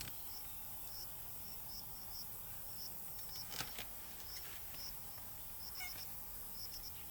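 Quiet outdoor ambience: insects chirping with short, high chirps repeating irregularly over a faint steady hiss, with a faint click or two.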